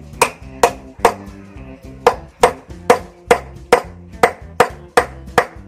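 A wooden mallet striking a metal tube used as a drift, tapping a new bearing into a motorcycle wheel hub: about a dozen sharp knocks, roughly two and a half a second, with a pause of about a second after the third. Background music plays underneath.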